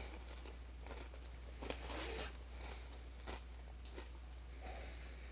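Faint crunching and chewing of a crunchy ube (purple yam) pillow snack, with a brief louder crunch about two seconds in.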